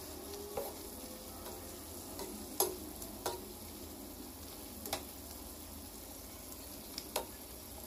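Tomatoes, onions and malunggay leaves sizzling in a frying pan while a wooden spatula stirs them, knocking sharply against the pan about five times.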